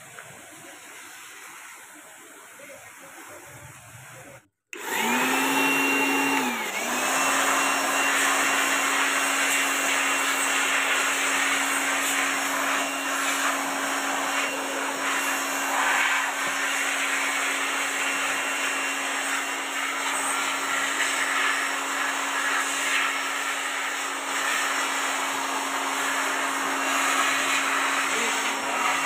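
Faint hiss of a pressure-washer jet on an air-conditioner outdoor unit's front grille, then a handheld electric air blower running steadily and loudly with a constant whine, blowing dust out of a split AC indoor unit. About two seconds after the blower starts, its pitch dips briefly and then recovers.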